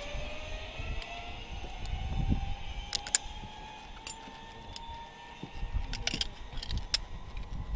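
Zip line trolley pulleys running along the steel cable, a steady whine that rises slowly in pitch and then levels off as the rider gathers speed down the line. A few sharp metallic clinks of harness gear come around three seconds in and again near six to seven seconds.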